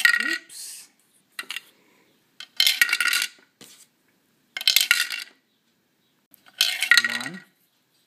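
Plastic Mega Bloks toy pieces clattering and knocking together in short bursts, about five times, each lasting under a second.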